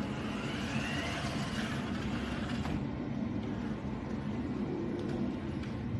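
Toy remote-control monster truck driving, its small electric motor whirring steadily, with a whine that rises and falls in pitch during the first couple of seconds.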